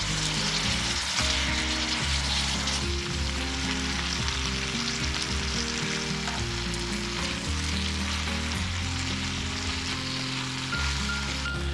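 Food sizzling steadily as it fries in a pan, under background music with held low notes.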